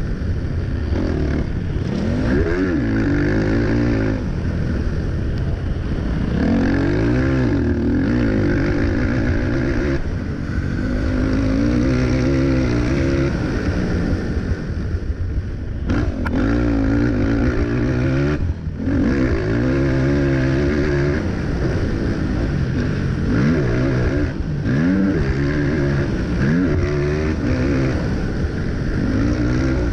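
Racing ATV quad's engine recorded onboard, revving up and down over and over as the rider accelerates and shifts around the track, with a couple of brief throttle cuts midway.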